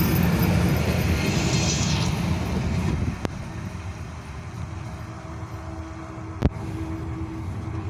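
Old passenger coaches of a passing train rumbling over the rails, the noise dropping off about three seconds in as the last coach goes by and the train moves away. A single sharp click near the end.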